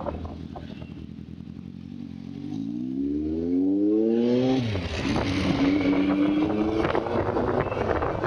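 Kawasaki Z1000's inline-four with a loud exhaust revving up as the bike accelerates, its pitch climbing for a couple of seconds, then dropping sharply at an upshift about halfway through. After the shift the engine pulls on steadily under a rush of wind on the microphone.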